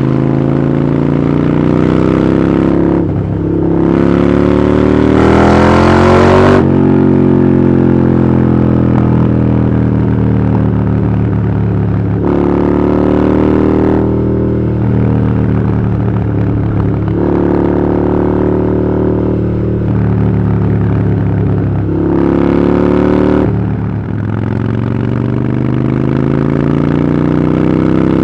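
Harley-Davidson Iron 883's air-cooled 883 cc V-twin running through a Vance & Hines exhaust, its engine note rising and falling with the throttle. There is one long climb over the first six seconds that drops off sharply, then several shorter rises and falls back.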